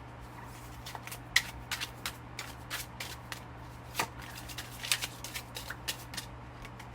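Tarot cards being shuffled and handled by hand: a run of irregular crisp card snaps and flicks, starting about a second in and stopping about six seconds in, over a faint steady low hum.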